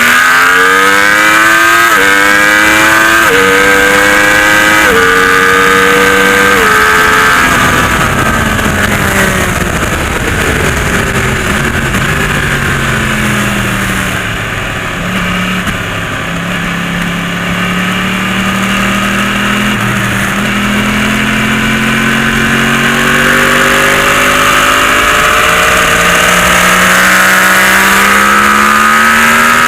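Yamaha YZF-R1's inline-four engine accelerating hard through four quick upshifts, its pitch dropping at each change. The revs then fall away off the throttle and slowly build again.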